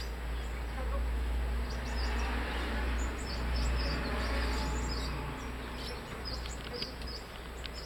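Outdoor ambience: a steady low rumble with many short, high bird chirps scattered through it from about a second and a half in.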